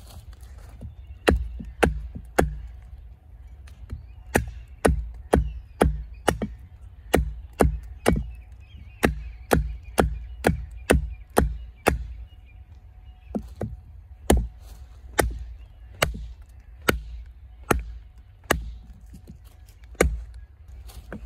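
Iron Mistress replica Bowie knife chopping into a rotting log: a run of sharp chops about two a second, broken by a few short pauses.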